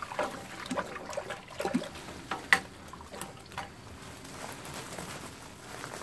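Crushed malt grist pouring from a plastic bag into the strike water of a Grainfather mash tun while mashing in: a steady trickling hiss, with the bag crinkling in short crackles and one sharp click about two and a half seconds in.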